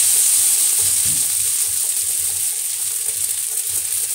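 Thin sheet of stretched trid dough sizzling on a hot flat pan: a steady hiss that eases off slowly as the dough cooks.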